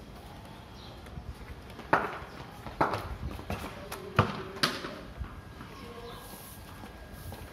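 Tennis ball knocking on a tiled courtyard floor and struck with a wooden cricket bat: a string of sharp knocks, about six, from about two to five seconds in.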